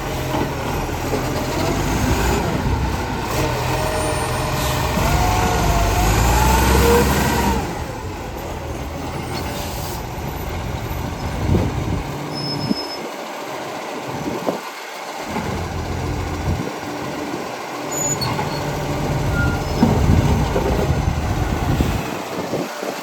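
Garbage truck engine running, its tone rising and growing louder over the first seven seconds, then dropping off with a short hiss of air.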